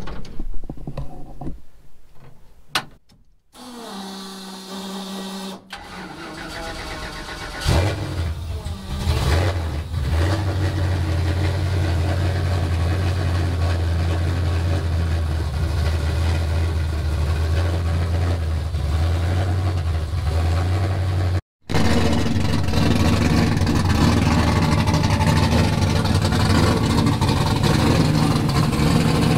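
Hyundai Genesis Coupe drift car's engine cranking and firing about eight seconds in, then settling into a steady, low idle.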